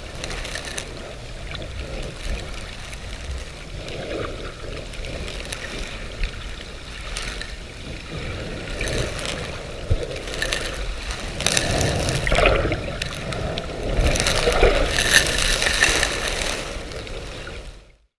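Water sloshing and splashing in uneven surges, louder in the last several seconds, then cutting off abruptly.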